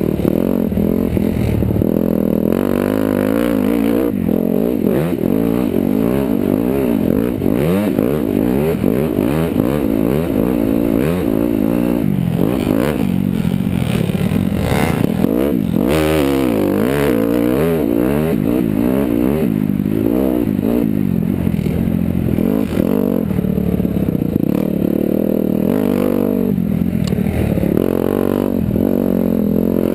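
Dirt bike engine revving up and down continuously as it is ridden over rough trail, with rattling from the bike.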